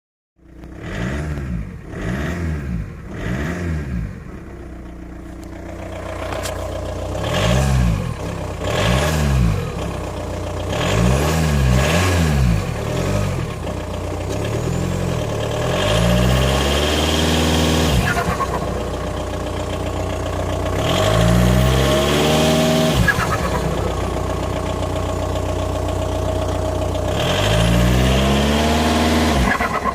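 2001 VW Jetta TDI's 1.9-litre four-cylinder turbodiesel being revved again and again, three quick blips at first, then longer pulls that rise and fall back to idle. Turbo flutter as the throttle is lifted after each rev.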